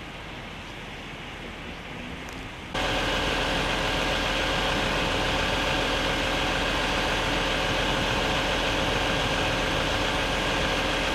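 Floodwater rushing across a road as a steady hiss. About three seconds in it gives way abruptly to a louder, steady idling vehicle engine with a constant hum.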